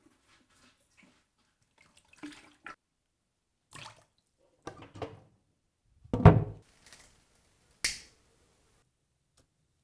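Sporadic knocks and clatters with pauses between them, the loudest a heavy thud about six seconds in, followed by a sharp click nearly two seconds later.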